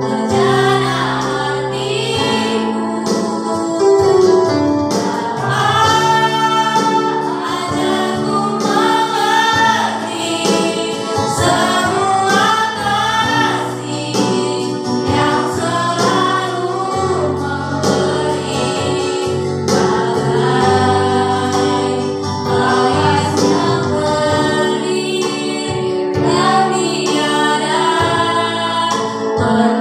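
Three women singing a Christian worship song together into microphones over backing music with held bass notes.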